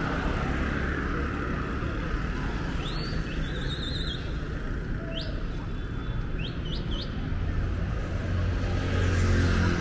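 Steady rumble of road traffic, with a small bird giving several short, rising chirps in the middle. Near the end a passing vehicle's engine grows louder.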